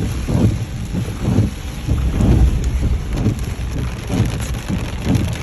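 Heavy rain falling on a car, a steady hiss with irregular deep rumbling surges about twice a second.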